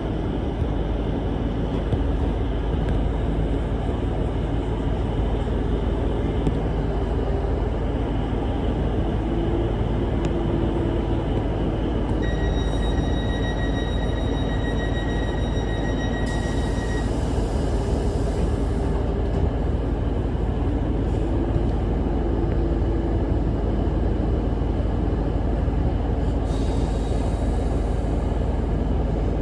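A train running: a steady low rumble with a faint hum that shifts in pitch. A thin high whine sounds for about five seconds around the middle.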